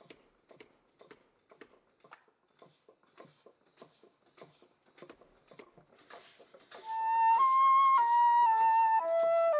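Faint, evenly spaced knocks about twice a second from the Lancashire smithy's steam hammer, run on compressed air, working on a block held on the anvil. About seven seconds in, louder flute music comes in over them.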